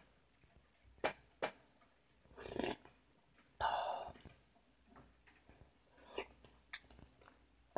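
Quiet eating sounds of hot broth being tasted from a wooden spoon: light clicks of the spoon against the bowl, and a breathy sip of the hot soup a little past halfway.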